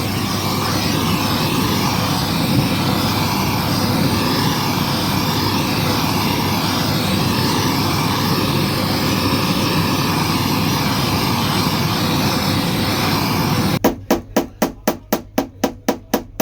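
Steady crackling hiss of electric arc welding, which near the end stops abruptly and gives way to rapid, evenly spaced knocks, about five a second.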